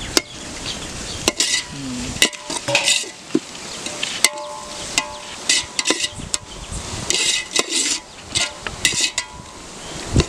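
Metal ladle stirring and scraping chopped tomatoes, onions and green chillies in a large aluminium pot, with repeated scraping strokes and sharp clinks of metal on the pot, over the sizzle of the frying mix.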